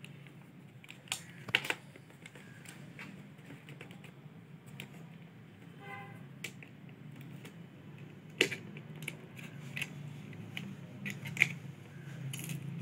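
Scattered small clicks and taps of hands and a tester screwdriver handling an opened plastic extension board while new wire is fitted to its terminals, over a low steady hum. The sharpest clicks come about one and a half, eight and a half and eleven and a half seconds in.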